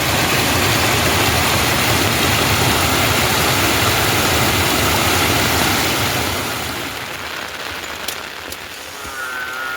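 Heavy rain in a storm, a loud rush with a low rumble underneath that eases about six seconds in, leaving the patter of rain.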